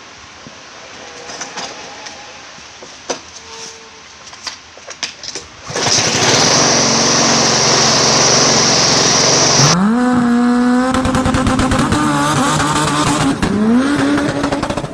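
A burnout. About six seconds in, a loud rushing hiss of spinning tyres starts suddenly. A few seconds later an engine revs up sharply, holds high revs, then climbs again near the end.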